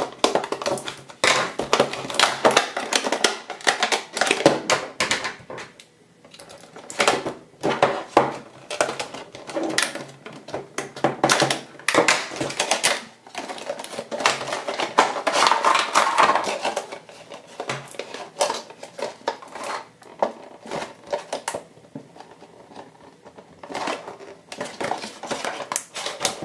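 Stiff clear plastic packaging being cut with scissors and pulled apart, crinkling and crackling irregularly, with a few short pauses.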